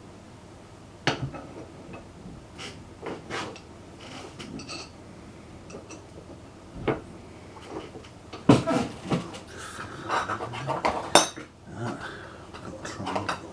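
Steel metal files clinking and clattering against each other and a desk as they are handled and sorted, with scattered knocks. The clatter is busiest in the second half, with sharp knocks about eight and a half and eleven seconds in.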